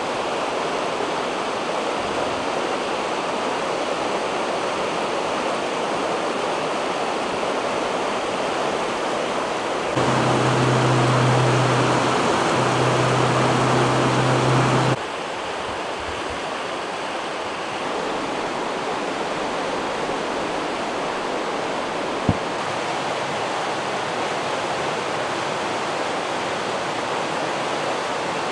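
Ashuelot River running shallow over rocks: a steady rush of water. For several seconds about a third of the way in the rush is louder, with a low hum under it.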